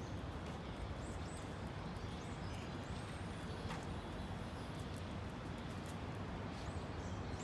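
Outdoor ambience: a steady low rumble with small birds chirping high and thin at scattered moments.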